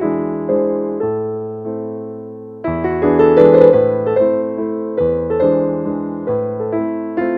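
Background piano music: slow notes and chords that ring and fade, with one long note dying away before louder chords come in a little before the middle.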